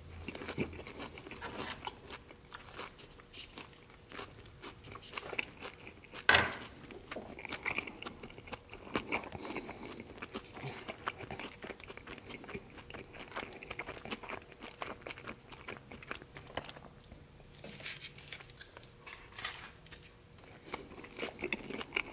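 A person biting into and chewing a crispy toasted sandwich roll, the crust crunching in irregular crackles, with one sharper crunch about six seconds in.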